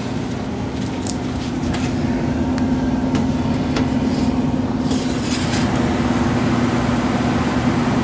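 York Diamond 80 gas furnace's blower running steadily in cooling mode: a steady hum with a few fixed pitched tones in it. Scattered light clicks in the first half or so.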